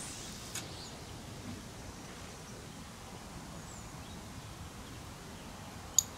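Faint outdoor ambience with a steady low hiss and a light click about half a second in. A sharp, louder click comes near the end.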